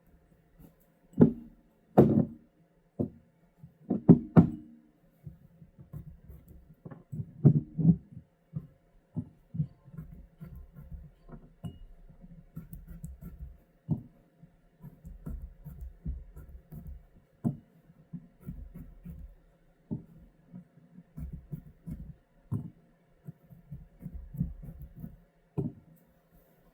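Irregular knocks, taps and clinks from handling garlic cloves on a cutting board and in a glass jar. A few loud knocks come in the first several seconds, then softer, closer-spaced tapping follows.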